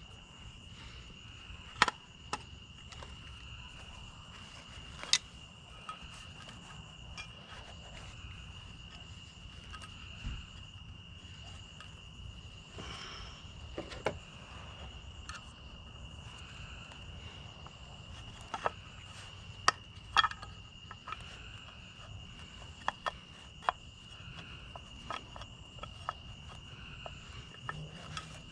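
Insects in the trees droning steadily at one high pitch, with scattered sharp metallic clicks and taps of hand tools working on a piece of scrap cast metal.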